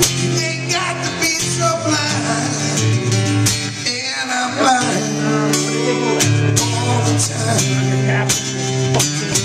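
Acoustic guitar strummed, with a voice singing along.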